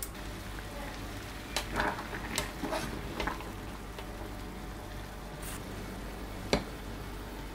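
Shimeji mushrooms bubbling in a stainless steel saucepan of hot water, a steady hiss. A fork and spatula clink and scrape against the pot in a flurry of strokes a couple of seconds in, and there is one sharp knock near the end.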